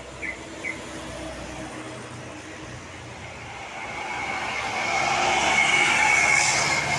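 A bus passing close by on the road: a rushing noise swells over a few seconds, peaks near the end and starts to fade, with a steady high whine running through it.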